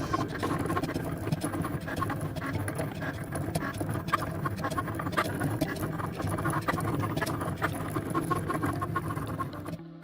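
Cricut Maker cutting machine running a cut: its motors drive the carriage and mat with a busy whirring and rapid ticking, cutting off abruptly near the end.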